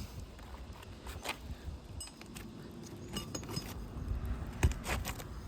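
Metal roofing tools clinking and scraping against nails under an asphalt shingle as the nails are worked loose, in scattered small clicks with a sharper knock near the end.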